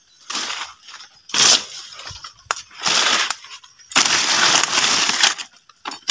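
Footsteps crunching on dry leaf litter and leafy branches rustling as someone pushes through forest undergrowth: a crunch about once a second, a sharp snap in the middle, then a longer rustle of brushing leaves.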